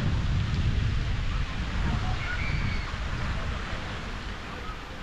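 Wind buffeting the microphone in gusts over the steady rush of fountain jets falling into a lake, with a few faint bird chirps.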